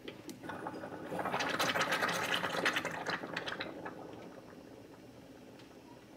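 Rancilio Silvia V3 espresso machine's steam wand blowing steam into a glass of water: a sputtering, crackling hiss that builds about a second in and tapers away over the next few seconds as the steam knob is turned shut. The wand is slow to close, which the owner takes as a leaky steam valve needing a rebuild.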